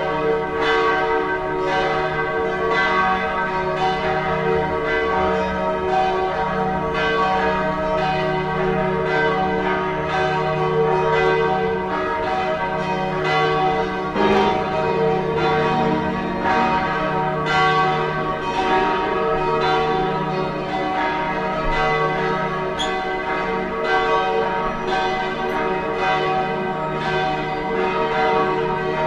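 Several church bells ringing together in a continuous peal. Strikes come about once or twice a second, and the bells' tones overlap and hang on between strokes.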